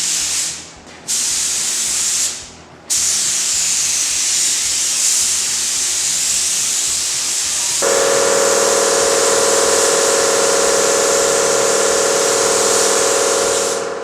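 Air spray gun hissing as paint is sprayed: two short pulls of the trigger, then a long continuous spray. About eight seconds in, a steady humming tone joins the hiss.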